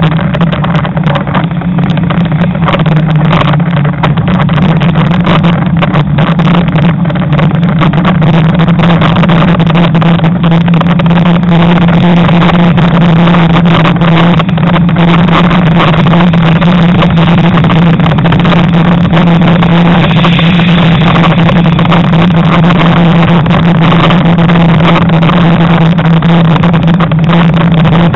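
Wind buffeting the microphone of a camera on a moving bicycle, loud and rough, over a steady low hum.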